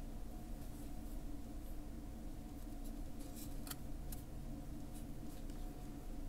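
Quiet room tone: a steady low electrical hum, with a few faint light clicks and scratchy rustles between about three and five and a half seconds in.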